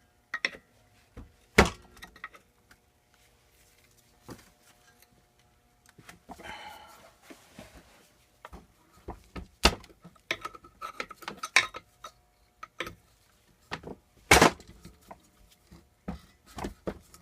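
Hammer blows and metal clinks from driving a wedge behind a pulley rusted onto a small engine's shaft. A few sharp knocks stand out, the loudest about ten and fourteen seconds in, with lighter tool clinks and a short scrape between them.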